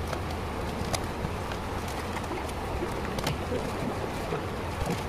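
Steady background hiss with two sharp light clicks, about a second in and again just after three seconds, as gloved hands press and fit a laptop's plastic bottom case.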